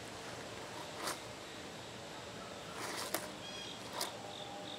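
Quiet outdoor ambience with a few soft clicks and knocks, and brief high bird chirps near the end; no gunshot.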